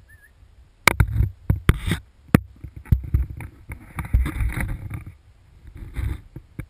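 Close handling noise on a GoPro camera on a monopod: a run of sharp knocks and clicks about a second in, then scraping, rustling rubs against the housing in bursts through the middle and again briefly near the end.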